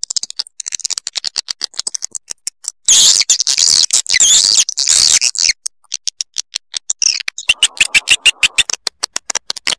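Swiftlet call recording used to lure swiftlets into a bird house: high, rapid twittering chirps of edible-nest swiftlets mixed with fast trains of sharp clicks, with the densest twittering about three to five seconds in and again near the end.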